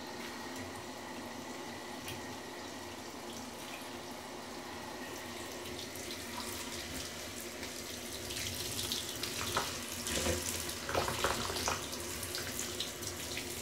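Water running from a handheld shower head onto a dog's wet coat in a bathtub: a steady rush of spray that grows louder and splashier in the last few seconds.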